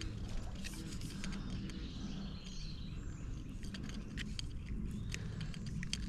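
Quiet outdoor ambience: a steady low rumble with a few faint bird chirps and scattered soft clicks.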